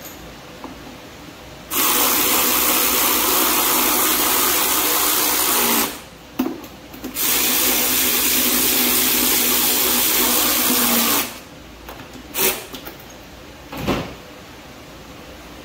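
Cordless electric ratchet running in two long bursts of about four seconds each, driving screws back in. A couple of short knocks follow near the end.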